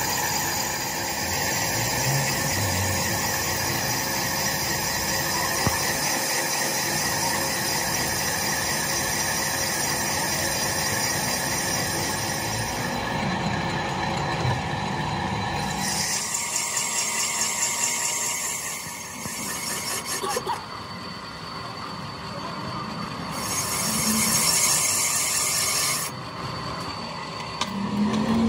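Metalworking machinery running: steady machine noise with several high steady tones and scraping of metal being worked, shifting abruptly several times.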